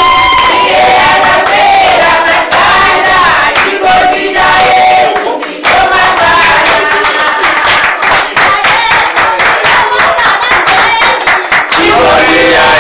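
A group of people singing together with handclapping; the clapping is thickest in the second half.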